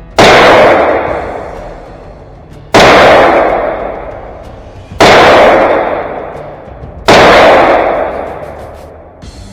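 Four single shots from a Ruger 9mm pistol-caliber carbine in slow fire, about two seconds apart. Each report is sharp and loud and rings out as it fades.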